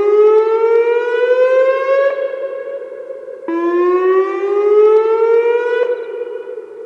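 Whelen WPS-2905 electronic outdoor warning siren sounding its whoop tone: repeated rising sweeps that each cut off sharply. One sweep ends about two seconds in, and another rises from about three and a half seconds to near six seconds. After each sweep a long echo hangs on and then fades.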